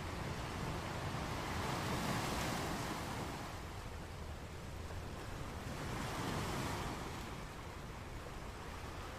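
Waves washing in twice, each a swell of hiss about two seconds long, over a steady low rumble.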